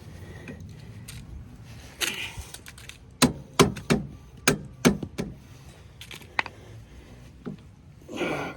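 Metal clicks and scrapes of multi-tool pliers gripping and working a stubborn, rusted-in cotter pin on a snowblower wheel axle, with a quick run of sharp clicks about three to five seconds in.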